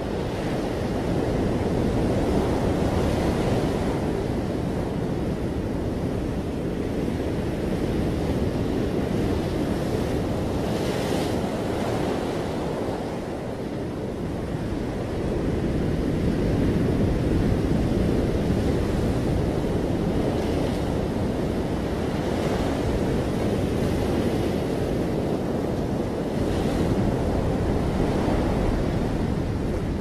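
Ocean surf: a steady low wash of breaking waves that swells and eases, with a few brief hissing breaks of foam.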